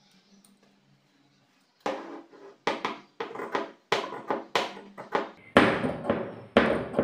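Large tailor's shears snipping through pinned layers of lining cloth and sari fabric. A run of crisp cuts, about two a second, starts about two seconds in, and the last few near the end are heavier.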